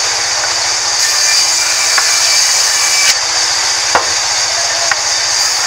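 Sawmill band saw running steadily with a high hiss, its blade cutting lengthwise through a hand-fed plank of rain tree wood, with a few sharp knocks of wood against the table.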